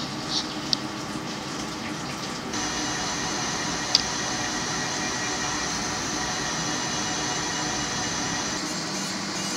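A jeweler's rotary handpiece running at a steady high whine, its conical abrasive point working a platinum setting. The sound gets louder about two and a half seconds in. There is a sharp click at the very start and a short tick near four seconds.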